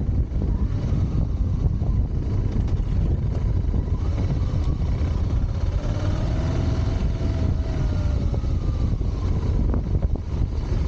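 Motorcycle on the move: heavy wind rumble on the camera's microphone over the engine's note. The engine tone rises and then falls in the middle.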